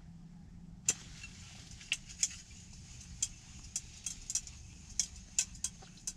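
Sharp, irregular clicks and ticks, about a dozen starting about a second in, from a small ice fishing rod and reel being handled and reeled.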